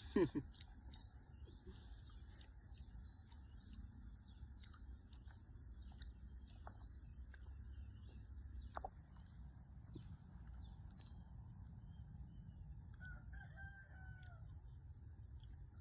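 A rooster crowing once near the end, faint, over many small high chirps of birds and a low steady rumble. A short loud sound comes right at the start.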